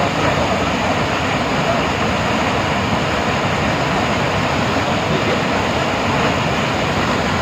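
Waterfall with a heavy flow of white water pouring over a rock lip, a loud, steady rushing of churning water.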